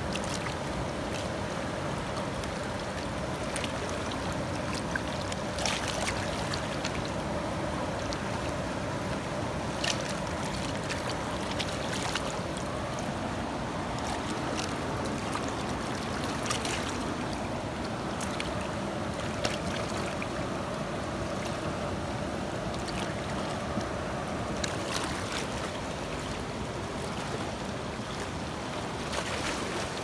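River water rushing steadily over and around rocks, with a few brief sharp sounds scattered throughout.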